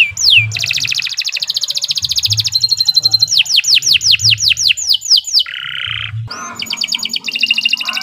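Domestic canary singing a long, varied song: falling whistled notes repeated several times a second, rapid rattling trills, and a short harsh buzzy note just past the middle before the trills resume.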